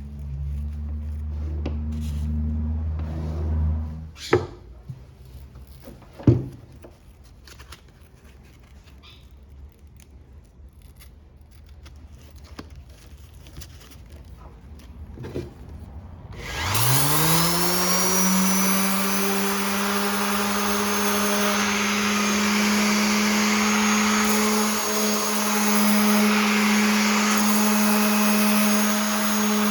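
Electric orbital sander switched on about halfway through, its motor spinning up with a rising whine and then running steadily, on a foam pad glued back together with contact cement. Before it, a low hum for a few seconds and two sharp knocks.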